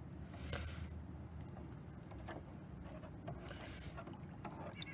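Shallow water in a plastic kiddie pool splashing and sloshing as a small hand-held fish net is swept through it. It comes in two brief splashy bursts, one about half a second in and another about three and a half seconds in.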